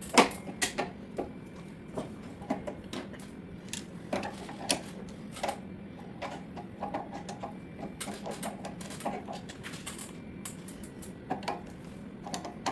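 Irregular clicks, clinks and knocks of tools and metal parts being handled while a pressure washer pump is taken apart, with a low steady hum underneath.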